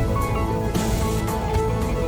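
Background music with a steady beat: sustained melodic notes over a heavy bass line.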